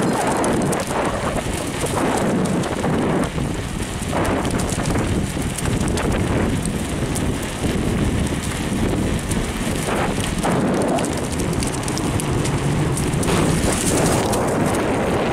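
Wind rushing over the microphone of a camera on a moving bicycle, mixed with crackling and rattling as the bike rolls along a paved path.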